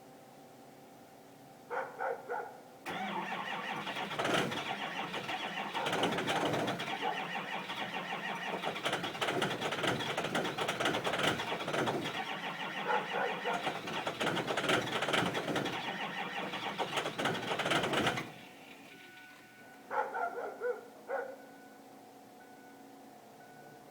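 2005 Ford Power Stroke 6.0 L V8 diesel being cranked by its starter on a cold, hard start: it cranks for about fifteen seconds without catching and then stops abruptly.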